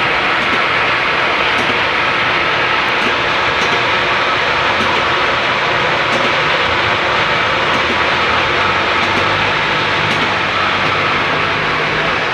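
Electric-motor well-drilling machine running steadily: a loud, even machine noise with a low hum underneath and a few faint ticks.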